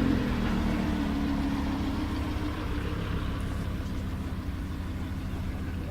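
Lamborghini Huracán LP610-4's V10 engine running: a small rise in revs right at the start eases back into a steady idle.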